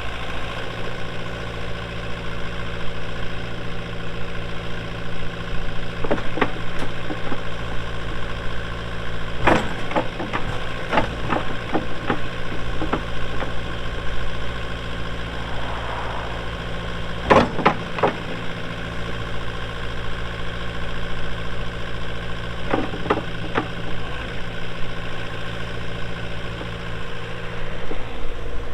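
Kohler diesel engine of a JCB 85Z-1 excavator running steadily, with several sharp clanks and knocks from the machine's working parts. The loudest clank comes about halfway through.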